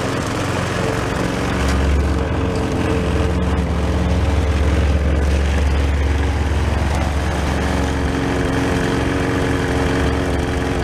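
Gas push mower's small single-cylinder engine running steadily at a constant speed; its low hum grows louder about one and a half seconds in.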